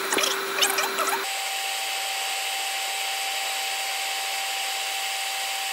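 12 V in-line bilge air blower running steadily: an even rushing hiss with a steady hum tone that steps abruptly to a higher pitch about a second in. A few small clicks and rattles in the first second.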